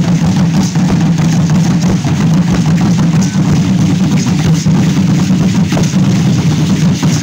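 Several huehuetl, tall upright wooden drums with skin heads, beaten together with sticks in a fast, continuous, dense drumming.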